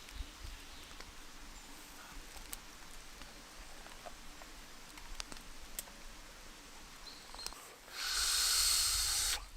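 Sleeping bag and bedding being handled while someone gets up: faint scattered clicks and rustles, then a loud swishing rustle of about a second and a half near the end.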